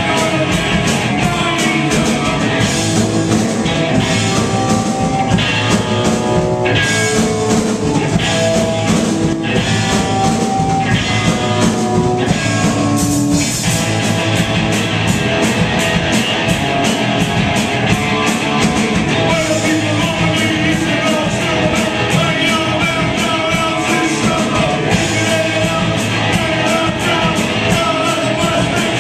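A live rock band playing loudly, with electric guitar and drums.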